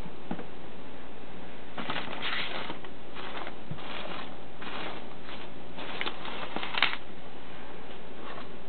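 Foam packing peanuts being scooped and rustled by hand in a cardboard box lined with bubble wrap, in a series of short crackly rustles from about two seconds in to about seven seconds in, the last one the loudest.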